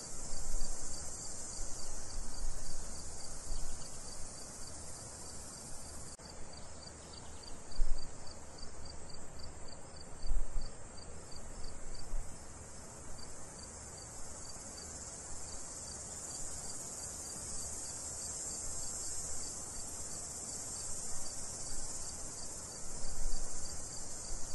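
Crickets chirping in a rapid, even pulse over a continuous high insect drone, a night-time ambience bed. A few brief low thumps come and go, the loudest about 8 and 10 seconds in.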